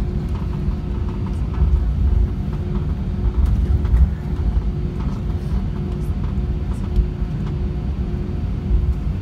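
Cabin noise of an Airbus A319 taxiing: a steady low rumble of the engines and rolling gear, with small bumps and light rattles.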